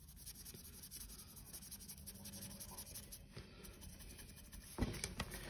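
Faint scratching of a paintbrush's bristles being scrubbed back and forth across a textured plate while dry-brushing paint, with a knock near the end.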